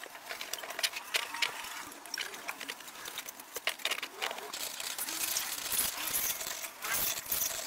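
Hand-cranked meat grinder being handled and assembled: scattered metal clicks and knocks as its parts are fitted and the crank is turned.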